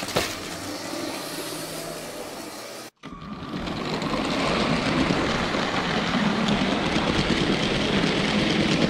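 Battery-powered Lego train running on plastic track, its motor whirring and wheels rattling. The sound breaks off about three seconds in, then builds up again and holds steady as the train approaches.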